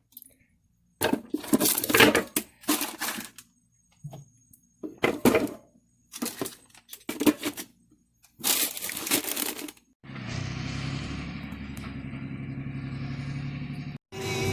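Short bursts of crackling, rattling noise, broken up by abrupt silences. From about ten seconds in, a steady engine running, which cuts off just before the end.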